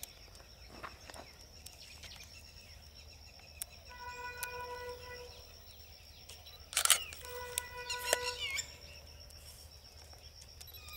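Outdoor ambience with a steady high-pitched whine and a few bird chirps. Twice a held tone with overtones sounds for about a second, and a sharp knock, like the camera being bumped, comes about seven seconds in.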